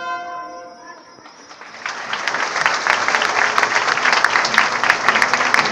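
A held trumpet chord fades away over the first second. About two seconds in, a crowd breaks into loud clapping and shouting.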